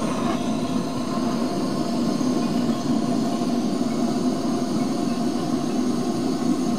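Handheld butane gas torch on a canister burning with a steady, even rushing flame, held against firewood in a stove's firebox to light it.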